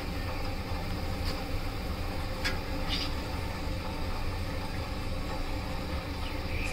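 Steady sizzle and rumble of potato chips deep-frying in hot oil, with a few faint clicks.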